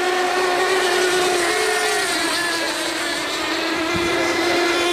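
Several radio-controlled model tunnel boats racing, their small engines making a steady, high buzzing whine at slightly different pitches. One engine briefly rises and falls in pitch about a second and a half in.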